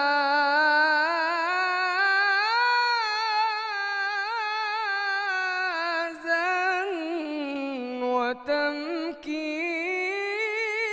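A man's solo voice chanting an Islamic ibtihal unaccompanied. He draws out a long, richly ornamented melisma on one vowel with quick wavering turns. The line climbs early, sinks low about eight seconds in, then rises again, with a couple of brief breaks.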